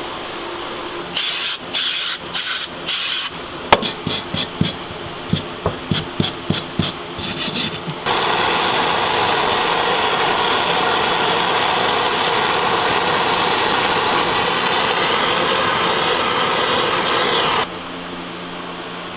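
Cleaning of a two-stroke dirt-bike silencer's perforated metal core: a series of scrubbing strokes, the first few long and the rest shorter and quicker. Then a steady rushing noise for about ten seconds that cuts off suddenly near the end.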